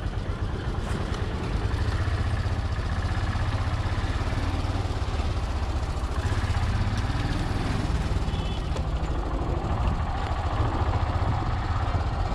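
Royal Enfield Himalayan's single-cylinder engine running steadily at low road speed, heard from the rider's seat.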